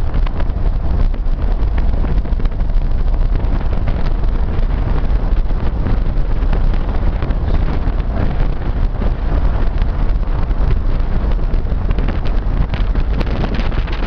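Loud wind buffeting the microphone, over the low rumble of a moving car.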